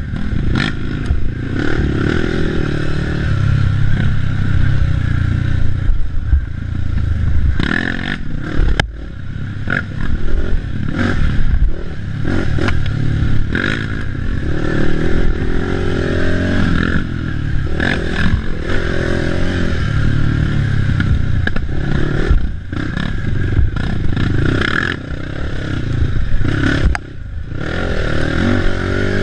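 Racing ATV engine revving and easing off over and over as the quad is ridden hard over a rough trail, with rattling, scraping and sharp knocks from the machine and the ground.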